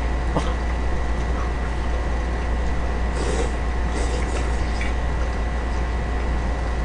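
A steady low hum runs underneath, with a faint high whine, while a few faint clicks and soft scrapes come from chopsticks in a metal bowl of noodles.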